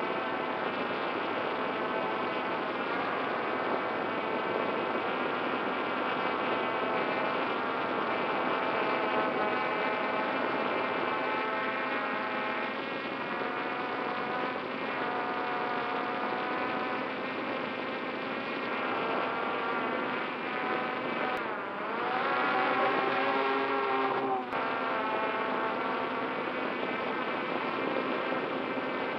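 Multirotor drone's electric motors and propellers buzzing steadily, heard from the camera mounted on the drone itself. Its several pitches drift together, with a quick rise-and-fall sweep about three-quarters of the way through as the drone manoeuvres.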